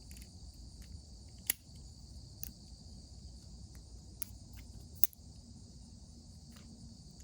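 A steady high-pitched hiss with a handful of sharp, isolated clicks, the loudest about a second and a half in, from handling a pocket multitool and its craft blade.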